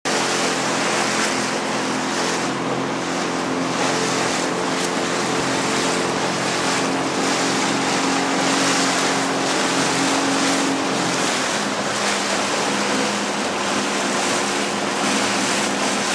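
A small boat's motor running steadily under way, its hum shifting slightly about two-thirds of the way through, over a steady rush of water and wind.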